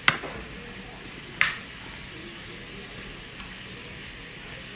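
Cauliflower florets sizzling in a speckled nonstick frying pan with a steady hiss. A metal spoon stirs them and strikes the pan sharply twice: right at the start and about a second and a half in.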